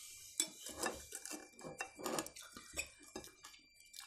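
Cutlery clinking and scraping against bowls during a soup meal, a string of short, irregular taps and scrapes with faint eating noises between them.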